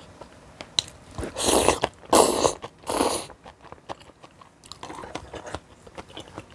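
Close-miked eating: chewing with small wet mouth clicks, broken by three loud noisy bursts of about half a second each, one after another between about one and three seconds in.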